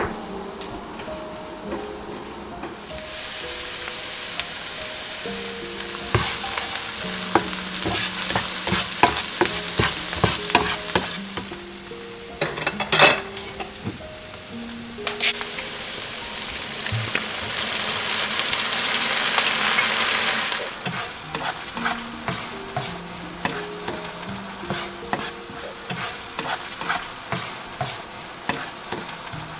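Chopped onions sizzling in oil in a frying pan while being stirred, with quick clicks and taps of the spatula. The sizzle swells twice, from about three seconds in and again from about fifteen seconds in, dropping away after each. A soft melody plays underneath.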